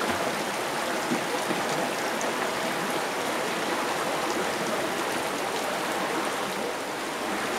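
Water dripping and trickling down a mossy rock face, many drops falling together in a steady, even patter like rain.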